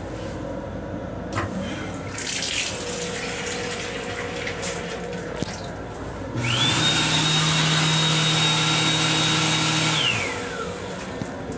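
Train restroom sink faucet running for about four seconds: water hissing into the bowl over a motor whine that spins up quickly, holds steady and winds down as the flow stops.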